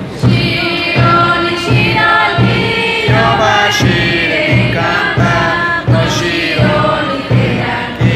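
Song for a traditional dance: several voices chanting together in unison over a steady low beat of about two pulses a second.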